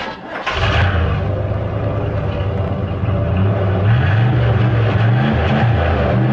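1978 Chevrolet Camaro Z28's 350 V8 starting about half a second in and then running, with a few blips of the throttle from about four seconds in that raise and drop its pitch.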